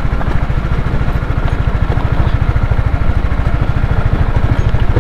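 Single-cylinder motorcycle engine of a Honda CBR150R running at low, steady revs, with an even, rapid pulse from its exhaust.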